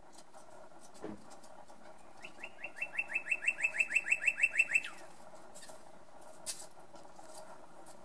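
Male northern cardinal singing one phrase: a rapid run of about fifteen quick down-slurred notes, growing louder as it goes, starting about two seconds in and ending with a longer falling note just under three seconds later.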